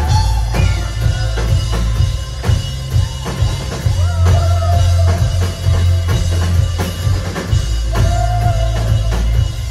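Live synth-pop band playing loudly: a drum kit beats out a steady kick-and-snare rhythm under a heavy bass, with long held melody notes over it.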